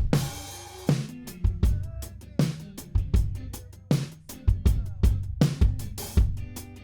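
Instrumental passage of a mixed pop song: a drum kit keeps a steady beat of kick and snare over a sustained bass line, with no singing, and a wash of high noise in the first second.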